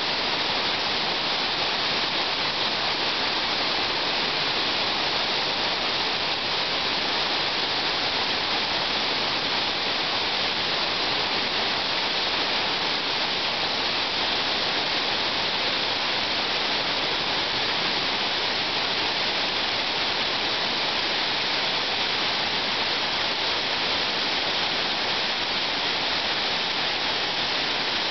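Water pouring over a dam spillway and rushing down its concrete chute: a steady, even rush of falling water with no let-up.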